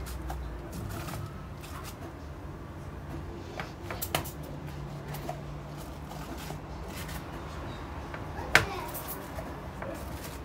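Round pastry cutter pressed through rolled tart dough onto a plastic-covered worktop: scattered soft knocks and taps, with one sharper knock about eight and a half seconds in, over a low hum.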